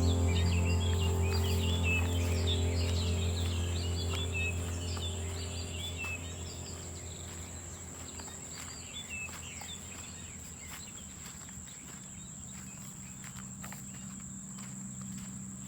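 Rural field ambience: birds chirping over a low sustained music drone that fades out in the first six seconds. A steady high-pitched insect drone runs under it, with faint ticks like footsteps.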